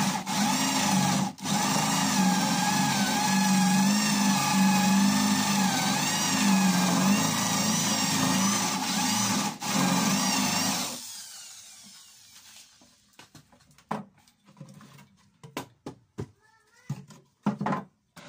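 Hand-held electric drill boring a 35 mm concealed-hinge cup hole into a plywood door, the motor's pitch wavering as the bit bites, with two very brief stops. After about eleven seconds the drill stops, followed by a few light knocks and clicks of handling.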